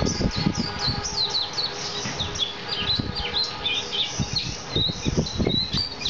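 Male white-eye (pleci) singing continuously, a fast run of short high twittering chirps and quick down-sweeping notes with hardly a pause. Low knocks sound underneath throughout.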